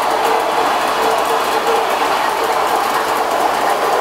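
Gauge 1 model passenger train rolling past on its track: the steady running noise of the locomotive and coaches' metal wheels on the rails, with faint clicking over the rail joints.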